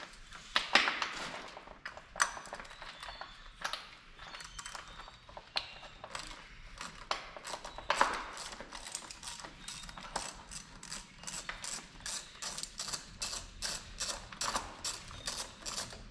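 Hand ratchet wrench clicking as it works bolts loose on an LS V8 engine during teardown, with a few louder knocks near the start and partway through. The clicks come in a quicker, fairly even run in the second half.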